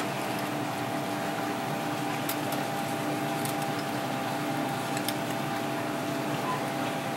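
Steady hum and hiss of kitchen machinery, with a few faint ticks as a knife works through porcupinefish flesh on a cutting board.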